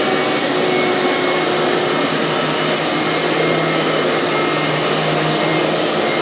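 HYLA water-filter vacuum cleaner running steadily: an even motor rush with a steady low hum.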